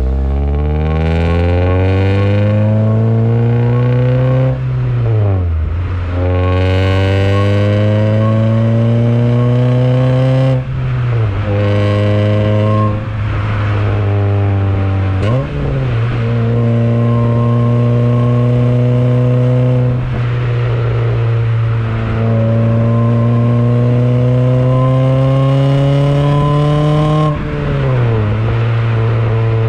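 A 2001 Honda Prelude's four-cylinder engine pulling under acceleration. Its pitch climbs, then drops back at each upshift, several times over.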